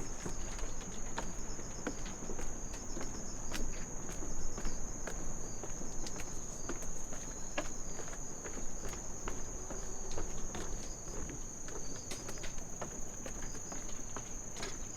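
Crickets singing in one steady, unbroken high-pitched chorus, with irregular footsteps of someone walking on the path.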